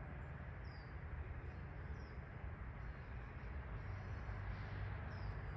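Quiet outdoor ambience: a steady low rumble and hiss, with three short, high, falling bird chirps, about a second in, around two seconds, and near the end.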